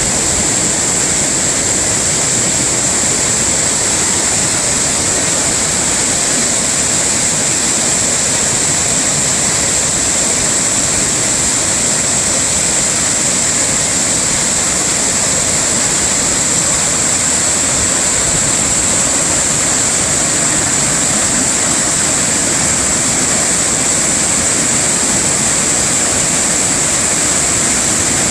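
Waterfall pouring, a steady, loud rushing of falling water with a constant high-pitched tone running through it.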